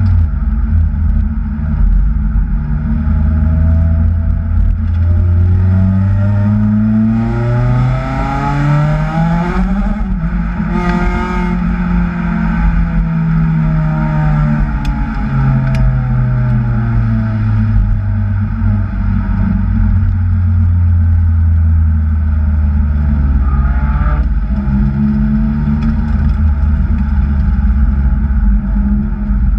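Kraftwerks-supercharged Acura TSX engine under load, with revs climbing for about ten seconds, falling slowly, then climbing again near the end, with a brief hiss about ten seconds in.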